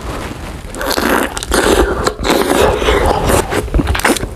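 Close-miked eating sounds: a person biting into and chewing grilled balut, with irregular wet mouth noises.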